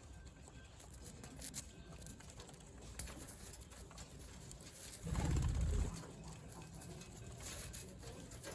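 Birds in an enclosure, with faint scattered clicks and a deep, muffled rumble lasting about a second, roughly five seconds in.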